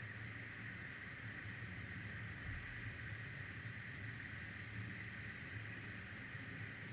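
Steady outdoor ambience on a nest camera's microphone: a low wind rumble under an even hiss, with no bird calls.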